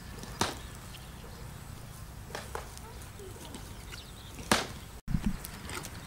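A few sharp knocks and taps as a bamboo skewer is worked through a whole plucked duck. The loudest knock comes about four and a half seconds in, followed by a dull thump, over a low steady rumble.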